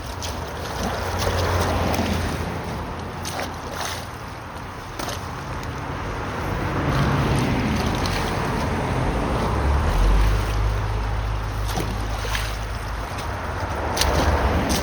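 Water sloshing and splashing while debris is pulled out of a clogged culvert, with scattered knocks and a steady low rumble.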